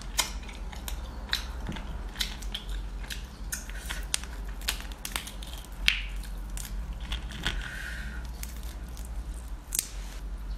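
Boiled spicy crayfish shells cracking and crunching as they are peeled apart by hand, in irregular sharp snaps, over a steady low hum.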